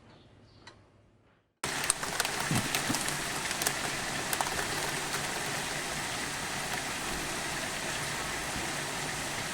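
Light rain falling: a steady, even hiss with scattered ticks of drops, starting abruptly about a second and a half in.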